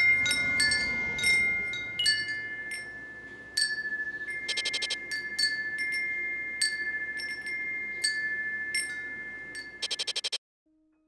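Wind chimes ringing: scattered bright metallic strikes with long ringing tones, a quick flurry of strikes about halfway through and another near the end, then the sound cuts off suddenly.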